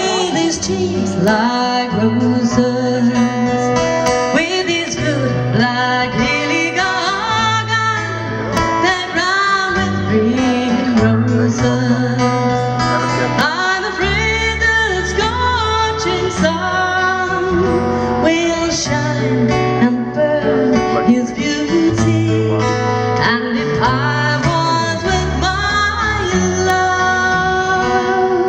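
A live folk song performed by a band: a woman singing the lead over strummed acoustic guitar.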